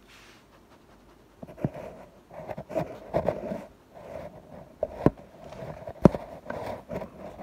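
Scratchy rustling and scraping right at the phone's microphone, broken by a few sharp clicks, as a dog's muzzle and a hand brush against it.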